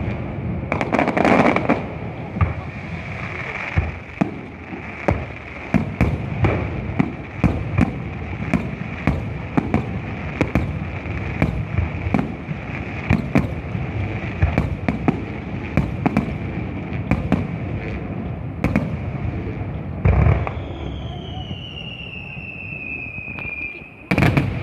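Fireworks display: a rapid, continuous run of bangs and crackling pops, several a second. Near the end a whistling tone slides slowly downward.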